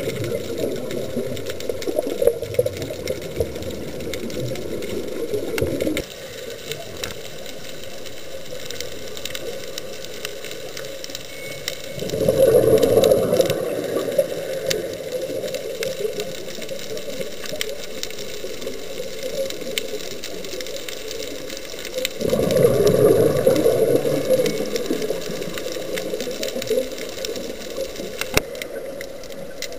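Scuba diver's exhaled bubbles gushing from the regulator underwater. The gush stops about six seconds in and returns twice, about ten seconds apart, with quieter underwater noise and faint ticks in between.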